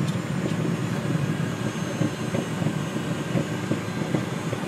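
Steady cabin noise of a Cessna Citation Mustang light jet on the ground, its twin Pratt & Whitney PW615F turbofans running at low power, heard as a low hum and rumble inside the cockpit.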